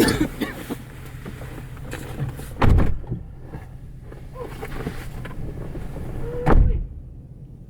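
Two rifle shots from a .22, about four seconds apart, each a short dull crack with a heavy low thud.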